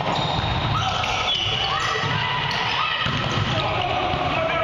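Rubber-soled sneakers squeaking on a hardwood gym floor during a volleyball rally: several held squeaks that start suddenly and step in pitch. A sharp slap of a hand hitting the volleyball comes right at the start, over players' voices echoing in the hall.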